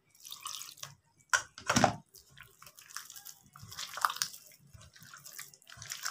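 Water poured from a plastic jug into a steel bowl of egg-and-flour batter, then a hand squelching and mixing the wet batter. Two louder knocks come between one and two seconds in.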